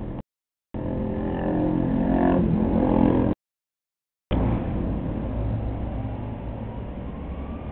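Ducati 400SS's air-cooled V-twin engine running, louder and climbing in the middle stretch. The sound cuts out abruptly twice, shortly after the start and again about three seconds in, as the takes are spliced together.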